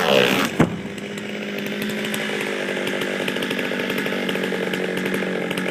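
Stihl chainsaw running at a steady speed, with one sharp, loud thump about half a second in.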